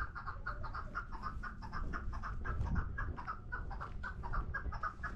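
Small birds chirping in a quick, even series of short notes, about five or six a second, over a low rumble.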